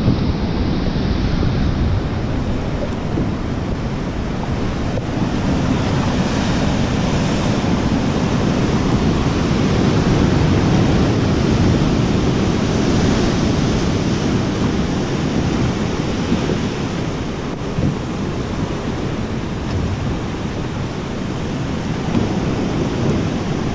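Steady rush of sea waves and water lapping close to the microphone, mixed with wind buffeting the microphone.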